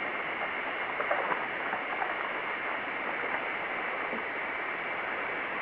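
Steady hiss of a recording with a narrow bandwidth, carrying a faint steady high whine and a few faint small clicks or knocks: room tone in a pause between speaking.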